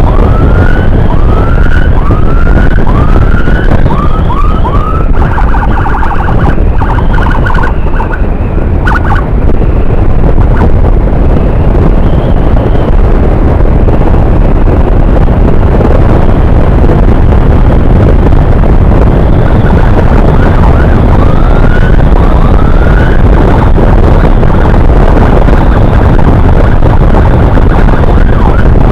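Electronic emergency siren in short rising yelps, switching for a few seconds to a fast warble, then sinking under the noise until the yelps return near the end. Heavy wind rush and engine noise from a motorcycle at speed run underneath throughout.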